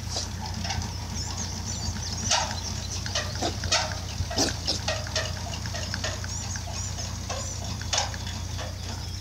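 Pigs grunting, a string of short irregular grunts.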